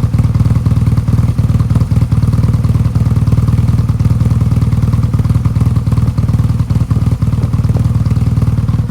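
BMW R1200GS Adventure's flat-twin boxer engine idling roughly, its beat stumbling with irregular short dips. The rough idle comes on only once the engine is fully hot and has not been cured by new spark plugs and coils, a valve check or a throttle-body sync.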